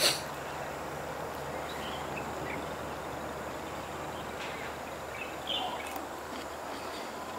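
Steady outdoor background noise with a few faint, short high chirps, opening with a sharp click.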